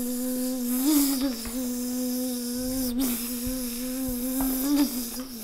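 A child's voice holding a long, steady buzzing hum that imitates a mosquito, with small wobbles in pitch about a second in, at three seconds and near the end, where it fades.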